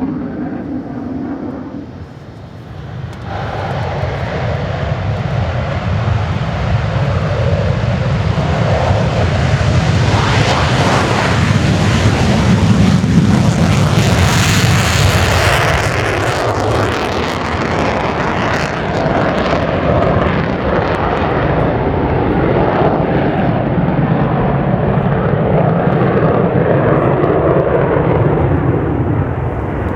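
F-15DJ Eagle jet fighter flying a display pass, the noise of its twin F100 turbofan engines swelling from about three seconds in to a loud peak near the middle, then staying loud and easing a little near the end.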